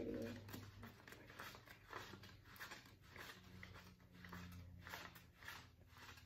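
Paper banknotes being counted by hand: a faint, steady run of soft flicks and rustles, a few per second, as bills are peeled off a stack and laid down one after another.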